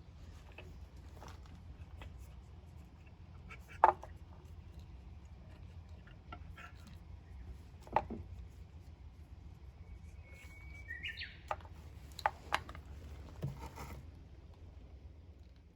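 A few sharp clicks and knocks, the loudest about four and eight seconds in, over a low steady hum, with one short bird-like chirp about ten seconds in.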